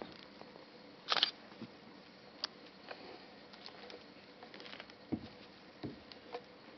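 Lions feeding on a waterbuck carcass: scattered wet chewing, tearing and crunching clicks. There is a louder tearing rustle about a second in and a couple of low thumps near the end.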